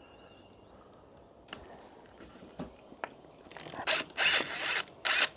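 A cordless drill driving screws into the door in three short rasping bursts near the end, after a few light clicks of handling.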